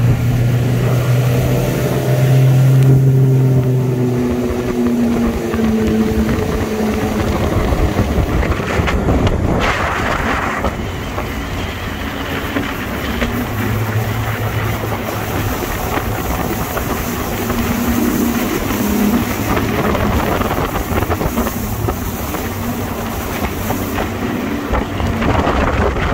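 Bass boat's outboard motor running under way against a fast river current, with wind and rushing water. A steady engine hum is strong for the first few seconds, then sinks under the wind and water noise and comes back faintly now and then.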